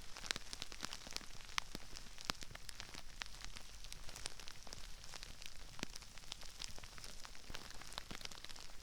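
Crispy rice crackling and popping: a dense, irregular patter of small sharp pops and crinkles over a faint steady hiss, heard close up on a binaural microphone.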